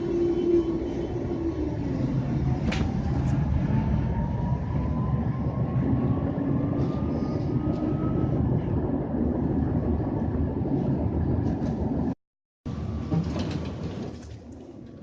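Prague tram running along the line with a steady low rumble. A whine rises slowly in pitch from about three seconds in to about eight seconds in as the tram speeds up. The sound breaks off briefly about twelve seconds in and is quieter near the end.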